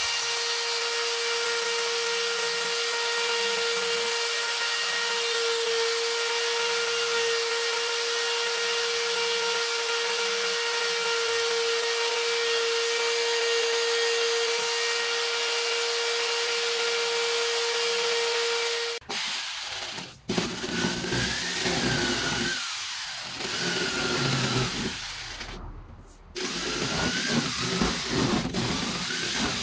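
A handheld rotary tool with a carving burr running at high speed and grinding into soft wood, a steady whine. About two-thirds of the way through it cuts off abruptly and is followed by uneven, stop-start power-tool noise.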